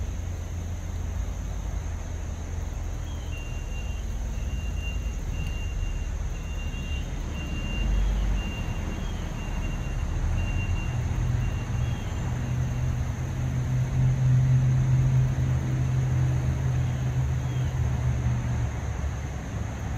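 Road traffic on a main road: a steady low rumble of passing vehicles, growing louder in the second half as a vehicle goes by.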